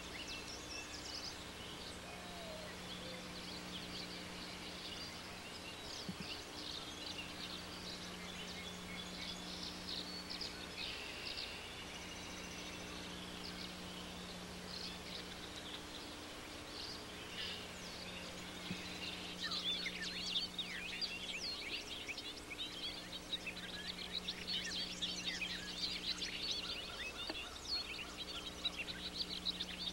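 Small birds chirping, much busier in the second half. Under them runs a low steady hum that drops out briefly every five or six seconds.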